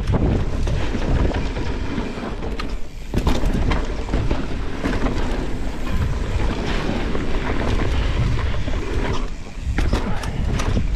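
Mountain bike ridden fast down a dusty dirt trail: wind rumbling on the camera microphone over tyre noise, with scattered clicks and knocks from the bike.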